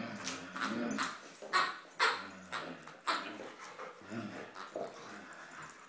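Irish setter making short vocal play noises while tugging at a plush toy duck, in a string of brief sounds roughly a second apart.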